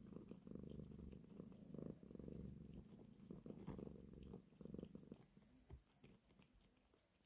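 Domestic cat purring steadily, fading away about five seconds in.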